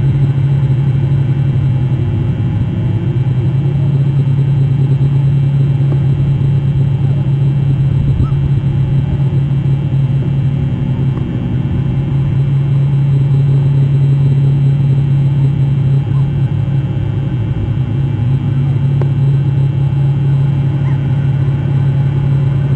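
Steady low engine hum of a motor vehicle running at an even speed, unchanging throughout.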